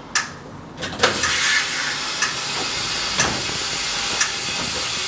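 Compressed air hissing steadily, starting with a click about a second in, with a few light ticks over it.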